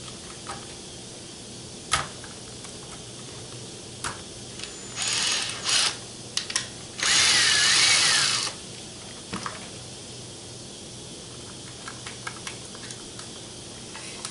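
Ryobi cordless drill driving a screw into an RC car's gearbox: a sharp click about two seconds in, two short bursts about five seconds in, then a longer run of about a second and a half with its motor whine wavering in pitch. Small clicks and taps of handling come before and after.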